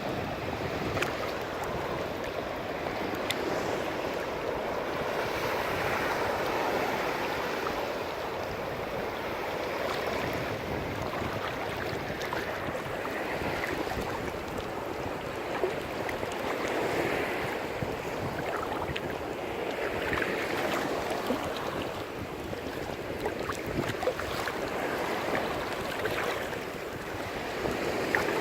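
Ocean surf breaking and washing in: a steady rush of water noise that swells and eases every few seconds, with wind on the microphone.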